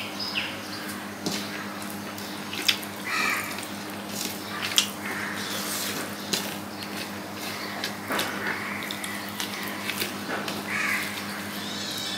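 Eating by hand: close-up chewing and wet lip smacks of rice and curry, with fingers squelching and mixing rice on a steel plate, as a run of short clicks and smacks. A crow caws twice in the background, at about three seconds and again near the end.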